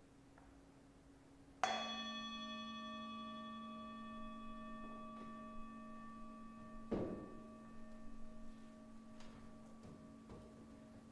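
A singing bowl struck once about a second and a half in, ringing on with a long slow fade and several overtones; the bell marks the close of a silent meditation. About seven seconds in there is a soft thump, then light knocks and rustling as someone moves about.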